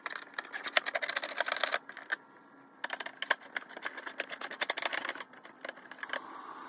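Phillips screws being backed out of the plastic housing of a Pentair Racer pool cleaner with a screwdriver: rapid clicking and ticking in two runs, fading out near the end.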